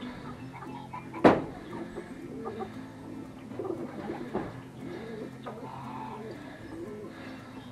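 Birds cooing, a dove or pigeon kind of call, with soft repeated coos over a steady low hum. About a second in comes one sharp snap, the loudest sound, as the roll of perforated metal hanger strap is worked.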